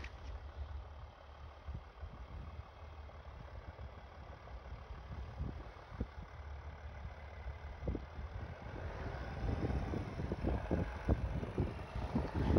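Mercedes-Benz X 350d pickup's V6 diesel idling as the truck creeps down a snowy slope under hill descent control, with no pedals touched. The low rumble grows louder and rougher over the last few seconds.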